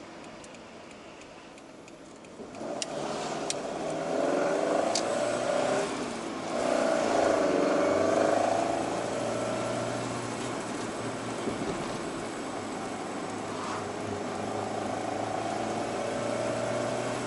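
Toyota AE86's 4A-G twin-cam four-cylinder engine, heard from inside the cabin. Low at first, it picks up about two and a half seconds in and revs up through the gears, with a brief drop at a gear change about six seconds in, then runs steadily at cruising speed. A few sharp clicks between about three and five seconds in.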